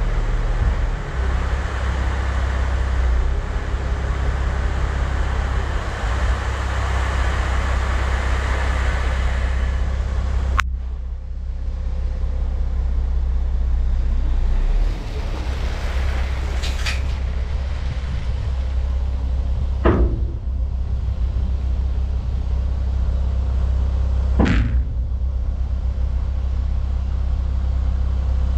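Heavy truck engine running steadily with a deep low rumble. A loud rushing noise over it cuts off abruptly about ten seconds in. Two sharp knocks follow later, about four and a half seconds apart.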